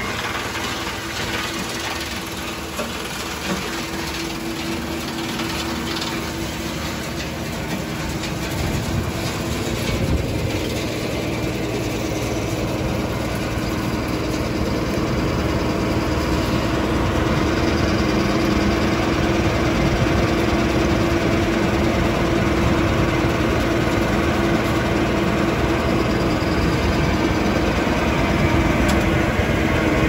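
Electric industrial drum wood chipper running: a steady mechanical drone with a constant hum, slowly growing louder.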